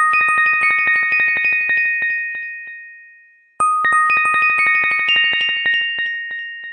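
Background music of bright chime tones, struck in quick succession over a few held notes. It fades away, then starts again abruptly about three and a half seconds in.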